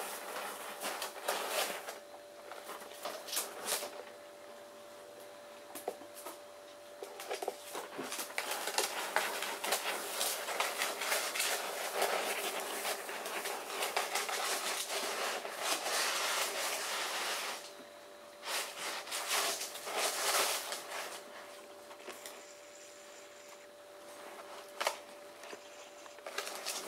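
Dry rice grains hissing and rattling as a ferret digs, burrows and rolls in a plastic tub full of rice. It comes in short scrabbling bursts with scattered grain ticks, and there is a long unbroken spell of digging through the middle.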